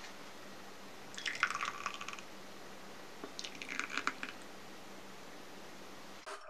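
Thick puréed asparagus soup poured from a saucepan into two ceramic ramekins, one after the other: two short, wet, splashy pours about two seconds apart.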